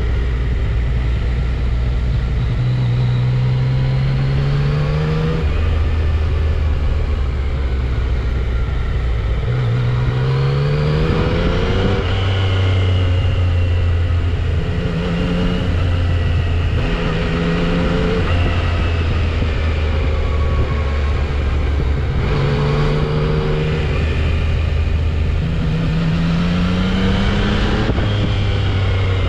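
Yamaha XSR900's inline-three engine through its stock exhaust, accelerating hard several times. Its pitch climbs, then drops with each upshift, over a steady rush of wind and road noise.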